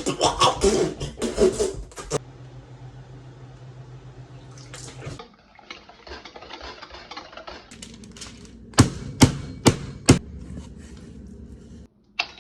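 Kitchen prep sounds at a mixing bowl: liquid being poured and stirred, with clattering at the start and four sharp clinks about three-quarters of the way through, over a steady low hum.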